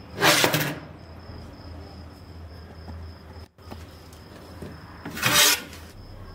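Two short scraping rubs, about five seconds apart, as the rusty steel backsaw is handled and slid on the wooden workbench. A steady faint high-pitched whine and a low hum run underneath.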